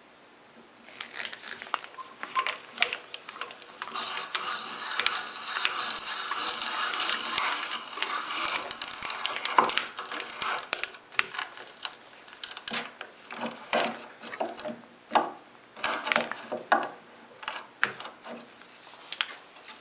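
Hand brace driving an adjustable expansive bit through a wooden board, the cutter scraping and crackling as it bores a 1 1/8-inch hole. The cutting starts about a second in, is steadiest for a few seconds in the middle, then comes in shorter spells with brief pauses.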